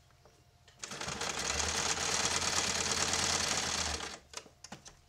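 Electric domestic sewing machine stitching a seam. The motor starts about a second in, runs steadily with a low hum under the fast needle clatter, and stops about four seconds in, followed by a few light clicks.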